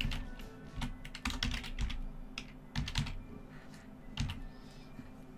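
Typing on a computer keyboard: irregular key clicks, quicker in the first couple of seconds and thinning out towards the end.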